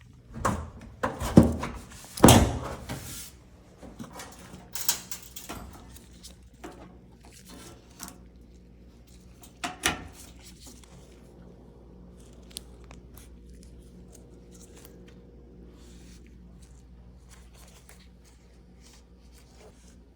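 Irregular knocks and clunks from handling the metal panels and parts of a GE electric dryer, the loudest about a second and two seconds in, with a few more up to about ten seconds in, then a low steady hum.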